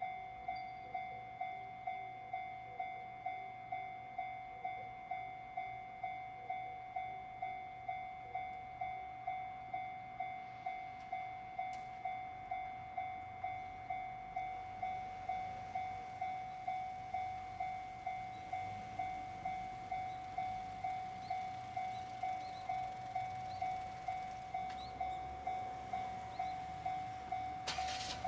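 Japanese railway level crossing's electronic warning bell ringing steadily, a repeated clanging tone about twice a second. A train's rumble builds under it in the second half, with a sudden loud burst near the end.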